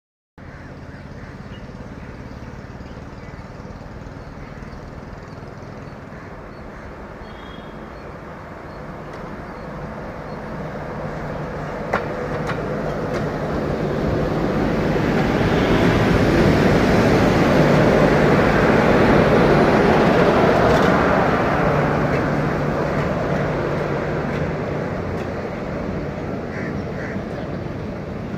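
Electric locomotive hauling a passenger train passing close by: a rumble of wheels on rail that builds up, is loudest a little past the middle, then slowly eases off.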